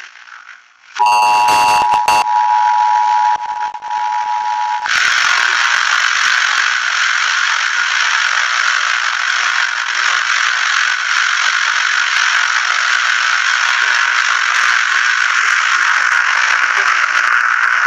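Emergency-alert-style tones: a short electronic data burst, then a steady two-note attention tone for about four seconds. It cuts off abruptly into a loud, steady hiss of static-like noise.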